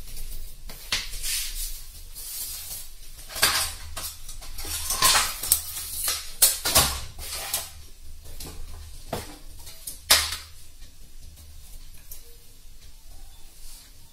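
Small metal tools and parts clinking and clattering as they are handled on an electronics repair bench: a string of sharp knocks and clinks, the loudest about ten seconds in, then quieter.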